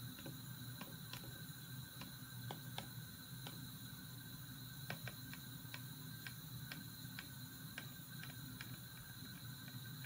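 Faint, irregular light clicks and taps, a few per second: a budgerigar's beak and claws working against the clear plastic bottle it is sitting in.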